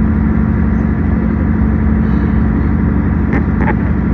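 Steady engine hum and rumble of a moving diesel passenger train, heard from inside the carriage, with a couple of short clicks a little over three seconds in.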